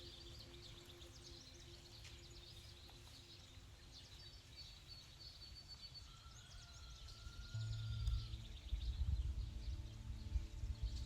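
Small birds chirping and whistling in woodland over a soft, steady ambient music drone. About two-thirds of the way in, a low rumble comes up and gets louder.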